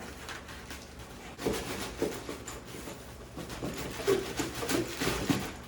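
Packaging being handled and opened: an irregular rustle and crinkle with a few soft handling knocks.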